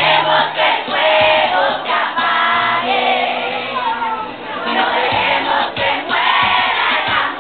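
A large crowd of young voices singing together in chorus, loud and a little ragged, with crowd noise mixed in.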